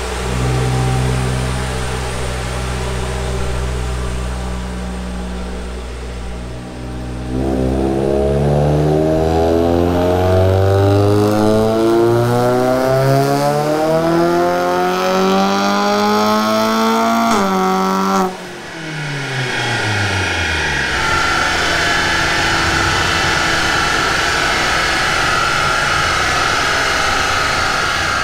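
Car engine on a chassis dyno making a full-throttle power run: it runs steadily, then from about seven seconds in the revs climb in one long, even pull for about ten seconds, cut off sharply and fall away. A steady rushing noise follows as the car winds down.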